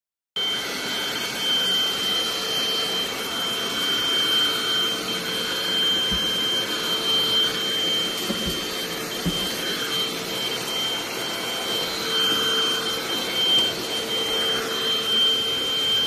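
XTON cordless stick vacuum cleaner running at a constant speed, a steady rushing noise with a high whine. There are a few short low knocks about halfway through.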